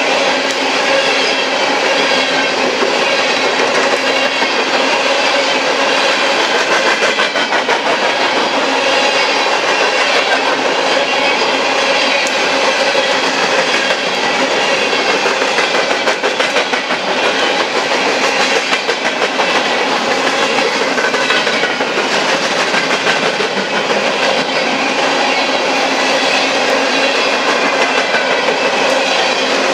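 Coal train's hopper cars rolling past close by: steel wheels clattering over the rail joints in a steady, unbroken clickety-clack.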